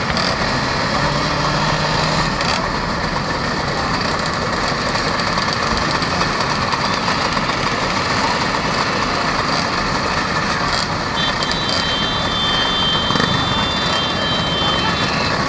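Many Vespa scooter engines idling together in a dense crowd, a loud steady mass of engine noise. Near the end a high steady tone sounds for about four seconds over it.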